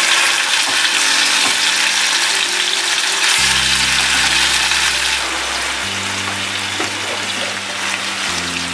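Marinated seer fish chunks frying in hot oil in a seasoned iron kadai, a steady dense sizzle. Soft background music with sustained low notes plays under it.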